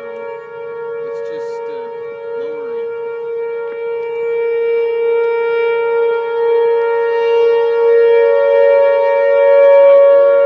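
Outdoor tornado warning siren sounding a steady wail, two notes at once, slowly growing louder toward the end.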